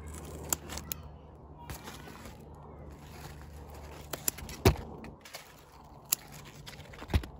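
Scissors snipping the stems and tendrils of a bottle gourd (opo) vine: a handful of sharp clicks, the loudest a little past halfway.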